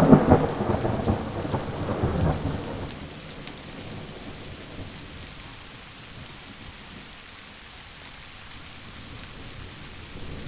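A thunderclap, loudest at the start and rumbling away over about three seconds, then steady rain falling.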